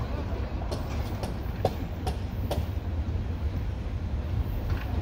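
A train passing: a steady low rumble of rolling stock, with sharp wheel clacks about twice a second in the first couple of seconds.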